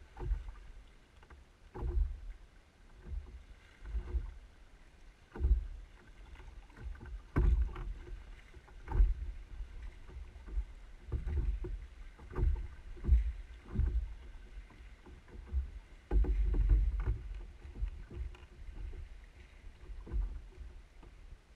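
Canoe paddle strokes: a splash and dull knock in the water and against the hull about every one and a half to two seconds.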